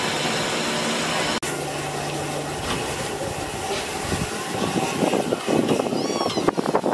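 Steam locomotives: first a steady hiss of steam escaping beside a small engine's wheels. Then LNER A3 Pacific Flying Scotsman working, its exhaust and mechanical noise building irregularly and growing louder, with a few brief high squeals near the end.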